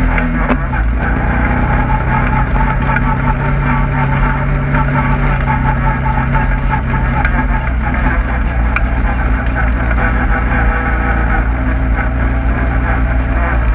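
Engine of an off-road vehicle running along a rough dirt track. Its pitch drops about half a second in as it eases off, then holds steady, with small knocks and rattles throughout.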